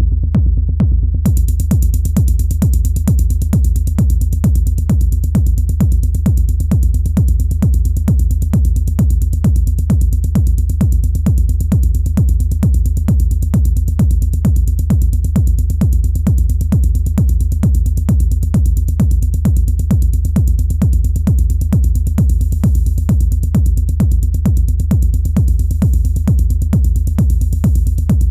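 Elektron Analog Rytm drum machine playing a steady techno beat: a regular kick pattern over a deep bass, with a bright high layer coming in about a second in.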